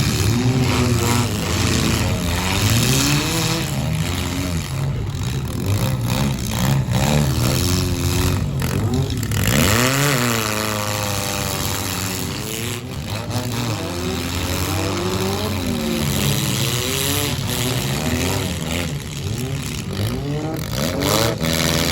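Several four-cylinder car engines revving at once in a demolition derby heat, their pitch rising and falling over and over as the cars accelerate and back off.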